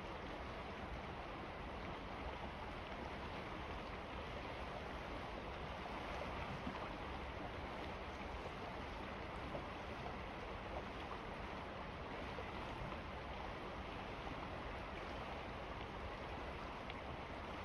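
The Salmon River flowing: a steady rushing of moving water.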